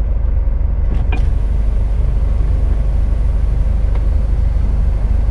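Scania S500 truck's 13-litre straight-six diesel running with a steady low rumble while it moves at low speed, with a brief click about a second in.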